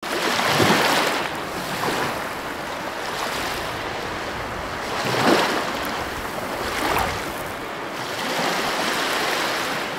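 Ocean surf: waves breaking and washing up a beach, the rush of water swelling up several times.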